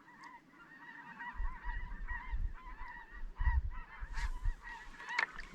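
A flock of geese calling far overhead: many faint, overlapping high honks, which sound like little chirping birds. Low rumbles come and go underneath.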